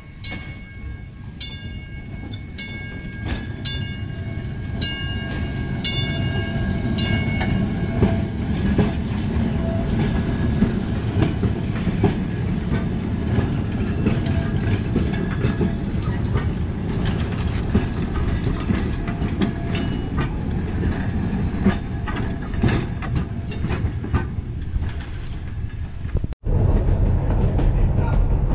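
A bell strikes about ten times at an even pace over the first seven seconds. Then a Red Arrow trolley car rolls past close by, its steel wheels rumbling and clicking on the rails, louder through the middle. Near the end the sound cuts abruptly to a louder steady rumble inside a trolley cab.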